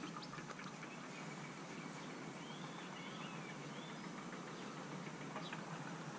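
Steady outdoor background noise, with a few light taps near the start as bamboo canes are handled, and a bird giving a short run of chirps in the middle.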